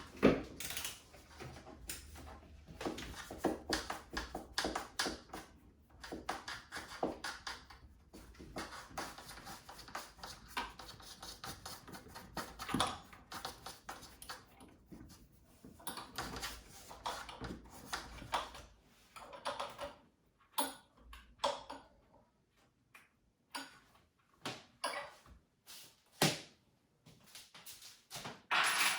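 Irregular clicks, scrapes and light knocks from old wall fittings being unscrewed and handled. Busy for most of the time, then thinning to a few scattered clicks near the end.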